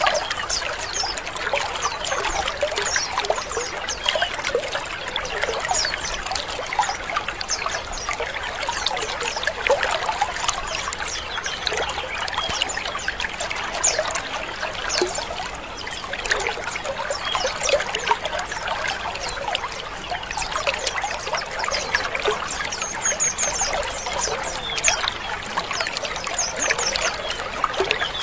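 A colony of white-eyes (pleci) twittering and chirping together: a dense chorus of many short, quick calls without a break.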